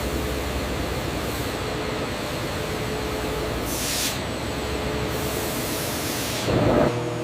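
Sawmill machinery running: a steady, noisy hiss with a faint hum, and a short louder burst near the end.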